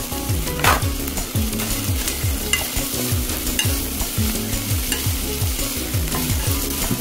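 Bean sprouts, garlic chives and leeks with minced pork sizzling in oil as they are stir-fried in a pot, tossed with long cooking chopsticks, with scattered clicks of the chopsticks against the pot.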